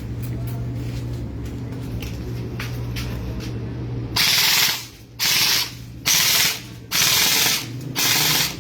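Airsoft M4A1 carbine firing on full auto: five short bursts, each about half a second long, in quick succession. They start about halfway in, after a steady low hum.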